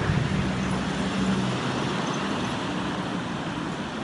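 Traffic noise: a motor vehicle's low engine hum that fades away over the first couple of seconds, over a steady rush of background noise.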